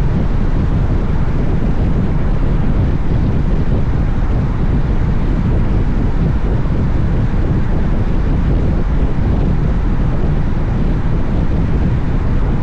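Steady wind rushing over the microphone on a moving motorcycle, a dense low rumble with the bike's running and road noise underneath.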